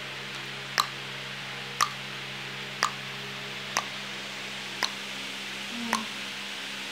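Six sharp clicks, about one a second, over a steady hiss and low hum.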